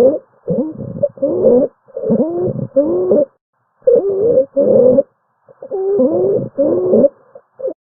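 Abnormal breath sounds: a run of short, pitched, musical sounds that slide up and down in pitch with each quick breath, broken by a brief pause near the middle.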